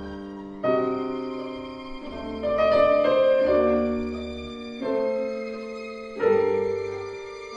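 Grand piano and string ensemble playing slow contemporary classical music: chords entering suddenly about four times, each fading away, over held violin notes.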